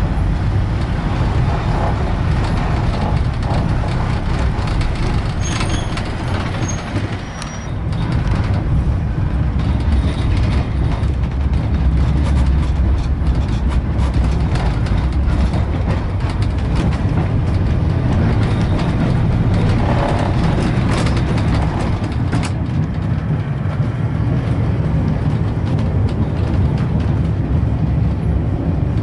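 Heritage tram 733 (the Western Train) running on its rails: a steady low rumble from the wheels and running gear, with occasional sharp knocks and a short drop in the rumble about seven seconds in.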